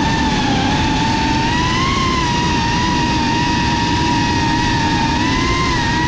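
FPV quadcopter's brushless motors whining at a steady high pitch that rises and dips slightly as the throttle changes, over a low rushing noise.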